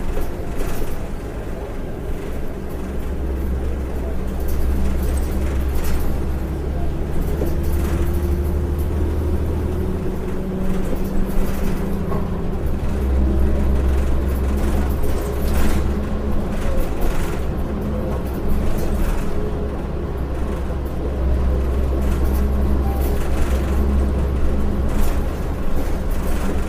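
Inside a 2006 Orion VII low-floor city bus under way: its Cummins ISL-9 inline-six diesel runs with a low rumble that swells and eases about three times as the bus pulls and slows. A faint whine rises in pitch about a third of the way through, and interior clicks and rattles come and go.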